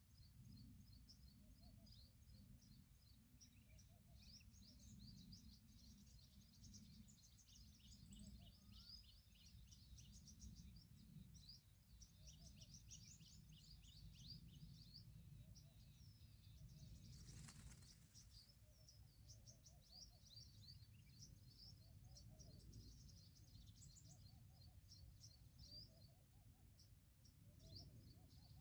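Faint, busy chirping of small birds, many short high calls overlapping, over a low steady background rumble. Just past halfway, a brief rushing noise sweeps over everything for about a second.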